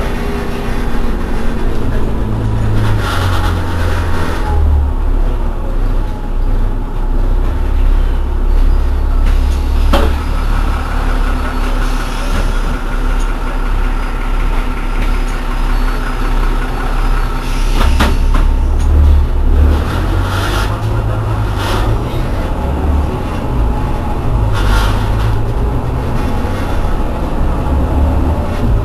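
Irisbus Citelis 12 city bus standing with its engine idling, a steady low rumble, with several short hisses and a sharp click over the idle.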